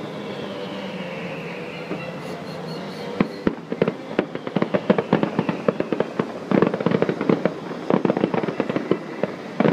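Distant fireworks crackling: a dense, rapid run of small pops that starts about three seconds in and gets thicker. Before it comes a steady hum with a slowly falling whine.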